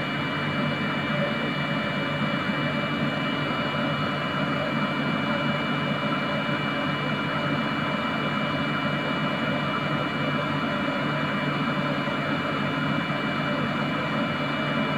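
Steady machine hum and whir with two constant high-pitched whines, from a benchtop biochemistry analyzer running during a kinetic absorbance reading at 37 °C.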